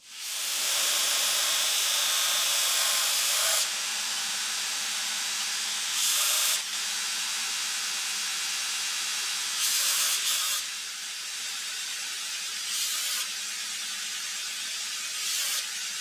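Belt grinder running, its abrasive belt grinding a small steel block: a steady hiss that swells louder several times, around six, ten and thirteen seconds in.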